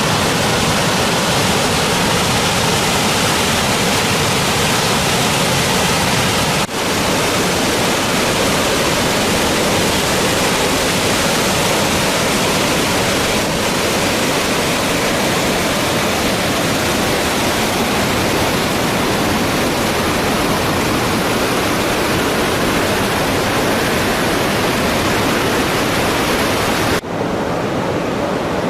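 Alpine waterfall rushing in a steady, dense roar of falling water. There is a brief dropout about seven seconds in. Another dropout comes near the end, after which the water sounds duller.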